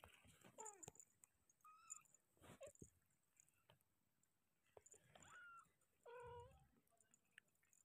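Young kittens mewing faintly, about five short high calls, some falling and some rising in pitch, with a few soft rustles between them.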